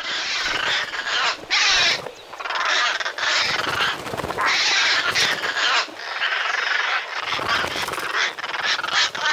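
Harsh calls of European rollers and jackdaws fighting, in repeated bursts of about a second each.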